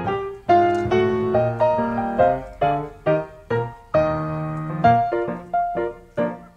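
Background piano music: single notes and chords struck at a steady pace, each ringing and fading.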